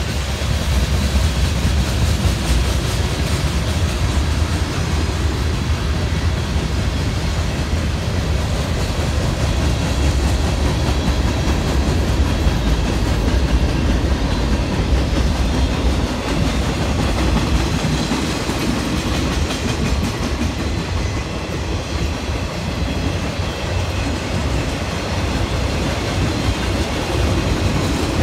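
Freight train's cars rolling past: a steady, loud rumble of steel wheels on the rails, from a line of tank cars, covered hoppers and boxcars.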